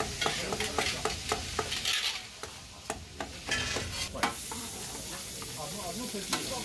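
Food sizzling as it fries, with quick sharp clatters of utensils over the first few seconds, then a steady sizzle.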